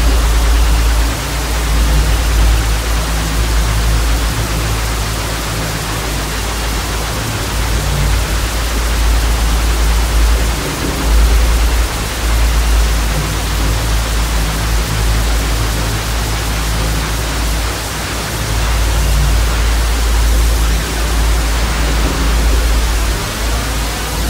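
Steady hiss of TV static over a deep, wavering drone of ambient music.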